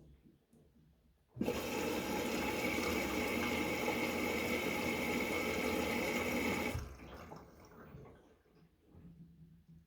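Water running into an LG washing machine: a steady rush that starts abruptly about a second and a half in and stops about five seconds later, trailing off into quiet.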